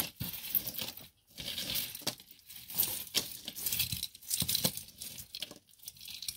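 Costume jewelry being handled: metal chains and seed-bead necklaces clinking and rustling as they are pulled apart, with many small irregular clicks.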